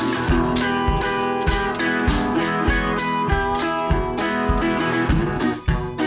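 Background music: a guitar-led track with a steady beat, about two beats a second.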